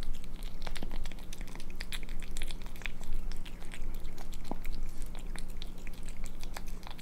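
Ragdoll kitten eating hungrily: quick chewing and lip-smacking, close up, a stream of small wet clicks several times a second.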